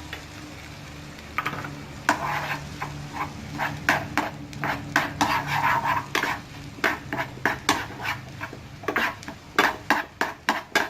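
Stirring in a hot frying pan: a utensil scraping and knocking against the pan while an egg and chopped vegetables sizzle. The strokes start about two seconds in and come faster, about two a second, near the end.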